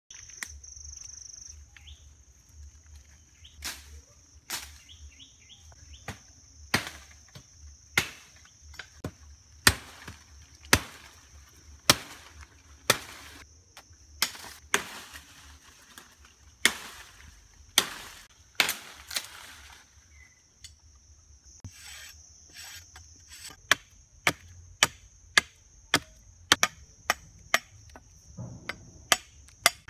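Machete chopping into branches and wood: sharp single strikes at uneven intervals, about one a second, coming faster near the end, over a steady high-pitched drone.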